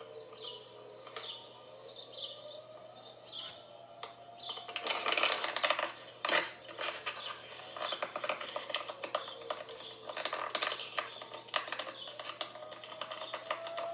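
Distant dual-tone outdoor tornado warning siren, sliding down in pitch and fading, then winding back up near the end, under birds chirping. A dense patch of clicking chatter, the loudest sound, fills the middle stretch.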